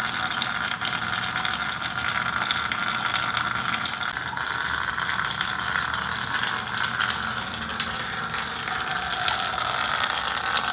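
Portable EDM machine and its water pumps running: a steady, fast crackle of sparking over a constant pump hum.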